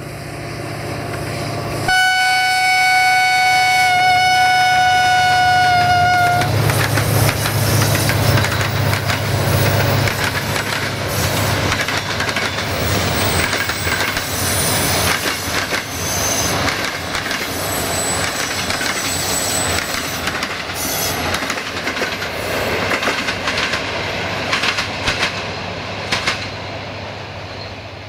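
Horn of a Romanian Class 65 diesel-electric locomotive sounded in one long single-note blast of about four seconds, about two seconds in. The locomotive's engine runs loud as it passes, then the clatter of the coaches' wheels on the rails follows and fades as the train draws away.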